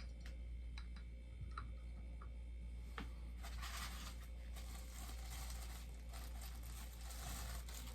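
A few light clicks and taps, then from about three seconds in a steady rustling and crinkling of packaging being handled and pulled open.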